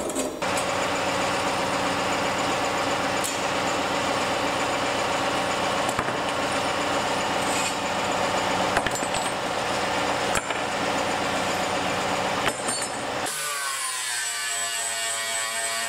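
Electric power tool running steadily, then switched off about 13 seconds in, its motor winding down with a falling whine.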